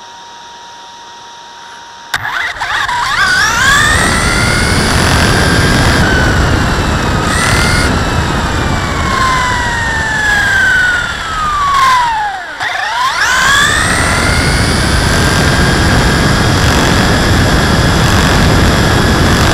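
HPI Blitz electric RC short-course truck heard from its own onboard camera: the whine of its electric motor and gears rises in pitch as it takes off about two seconds in, falls as it slows in the middle, then rises again and holds at speed. A steady rush of the tyres on rough asphalt runs underneath.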